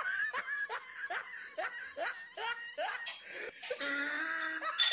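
A person laughing in a run of short repeated bursts, about two or three a second, then a longer drawn-out vocal sound near the end.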